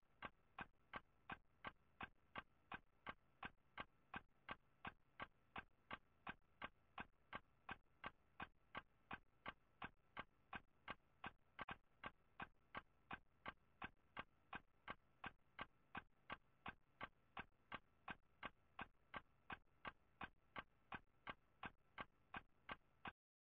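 Clock ticking, quick, even ticks between two and three a second with nothing else under them. The ticking starts and stops abruptly.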